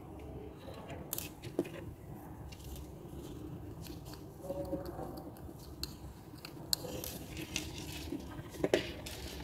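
Small spring-loaded thread snips clicking as they cut a yarn end, with light handling of yarn and a metal needle; a few scattered clicks, the loudest near the end.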